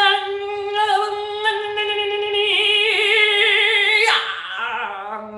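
A woman singing a long held note, with the pitch wavering a little in the middle; about four seconds in her voice slides down into a lower, quieter note.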